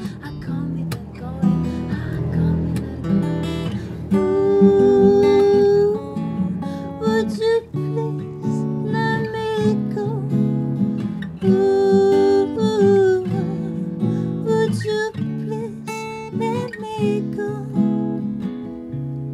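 A woman singing over a strummed acoustic guitar, holding long notes that slide between pitches.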